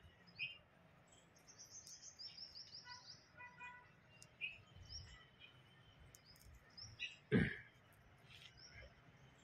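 Birds chirping and trilling in the surrounding trees, faint and repeated, with one sudden thump about seven seconds in.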